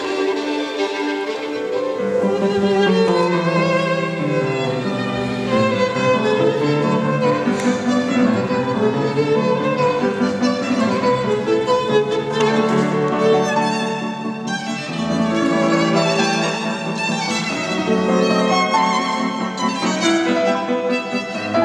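Violin played with the bow in a classical piece, its notes changing quickly and without a break.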